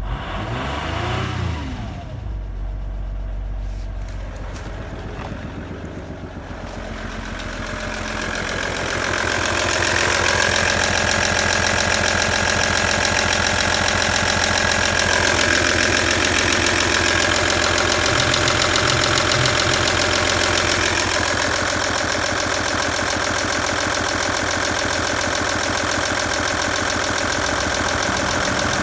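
Audi 2.5 TDI V6 diesel engine (AKN) settling from a brief rev back to idle, heard first from inside the cabin. From about nine seconds in it is louder and closer, idling steadily with the bonnet open.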